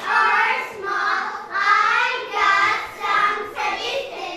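A group of children singing together, in phrases about a second long.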